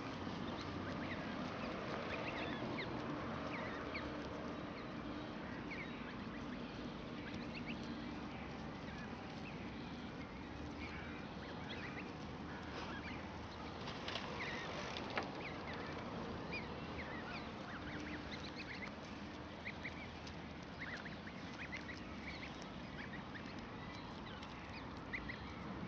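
Canada goose goslings peeping: many short, high chirps, one after another, over a steady background hiss, with a single brief knock about halfway through.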